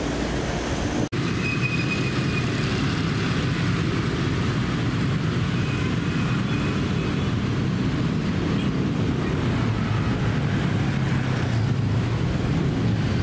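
Steady city road traffic from cars and motorbikes: a continuous low rumble of engines and tyres. It follows a brief hum inside a standing commuter train car, which cuts off about a second in.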